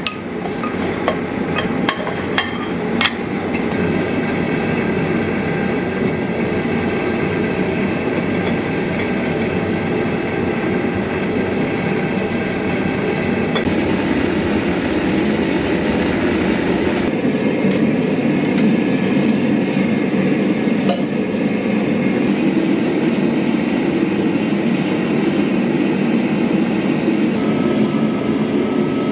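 Hand hammer striking a steel shield boss against an anvil, about two sharp metallic blows a second for the first three seconds. Then a steady, loud machine noise takes over and runs on without a break.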